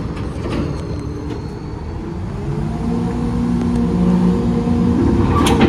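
Heil Dura Pack 5000 rear-loader garbage truck running its packer cycle: the truck engine and hydraulics run steadily, stepping up in pitch about halfway through as the packing panel moves. A sharp clunk comes near the end.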